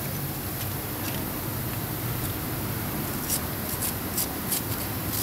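Small wire brush scrubbing the corroded wiring terminals of a fuel pump sender assembly, cleaning them for a good electrical contact. The short scraping strokes start about three seconds in and come about three a second.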